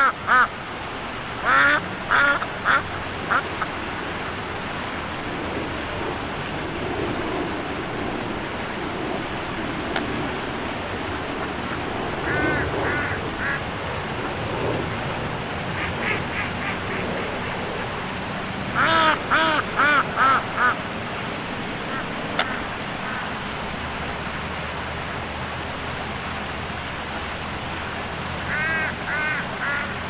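A duck quacking in short runs of several quick quacks, about six runs with long gaps between them, over a steady background noise.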